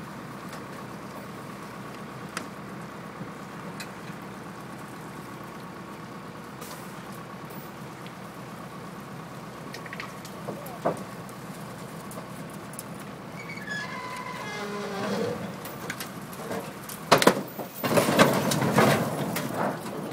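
A vehicle engine idling steadily with a humming drone. In the last few seconds, loud irregular rustling and knocking noise comes over it.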